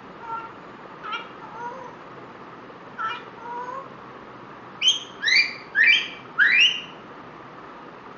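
African grey parrot vocalizing: a few short soft whistles and clicks, then a quick run of loud, rising calls about five seconds in.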